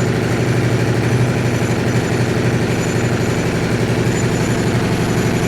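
Motorcycle engine idling steadily through a LeoVince GP Corsa carbon slip-on exhaust with its dB-killer baffle fitted, not revved. The exhaust note is pretty loud, with an even, rapid pulse.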